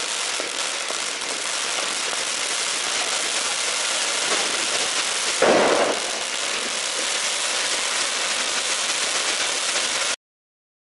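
Ground firework fountain hissing and crackling steadily as it sprays sparks, with one louder burst about halfway through. The sound cuts off abruptly just before the end.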